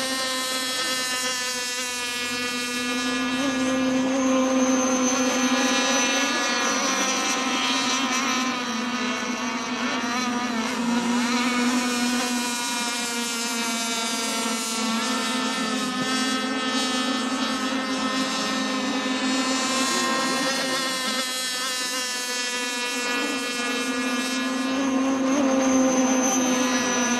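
Radio-controlled racing boats running flat out on open water: a steady, buzzing engine note that rises and falls slightly in pitch as they race.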